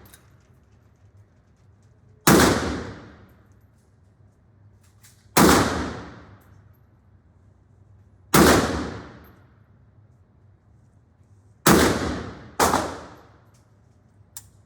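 Five single gunshots on a shooting range, each with a fading echo: four spaced about three seconds apart, then the last two close together. A small click follows near the end.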